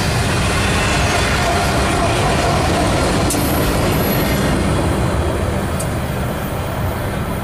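Two GE Evolution-series diesel locomotives, the train's rear distributed-power units, passing close by with a steady, heavy low rumble that drops a little near the end as they move away.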